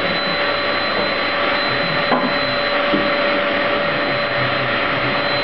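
Household vacuum cleaner running steadily: a rush of air with a constant high motor whine.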